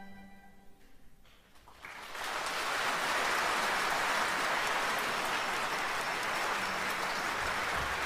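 A short hush as the music dies away, then a concert audience breaks into applause about two seconds in, the clapping steady and sustained.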